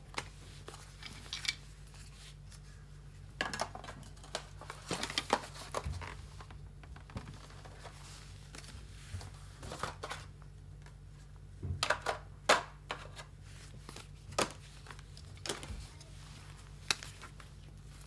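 Paper inserts and cardboard packaging being handled and shuffled: scattered rustles, crinkles and light taps, over a steady low hum.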